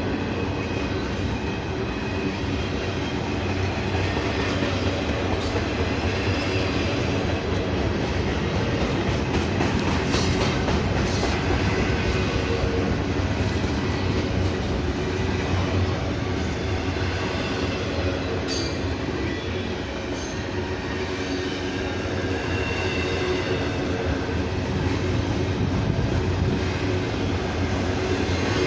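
Freight train cars rolling past: a steady, heavy rumble of steel wheels on rail with scattered sharp clicks and faint high wheel squeal.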